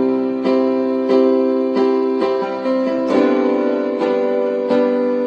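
Instrumental intro of a song: piano or electric piano playing chords struck about every two-thirds of a second, with a guitar underneath.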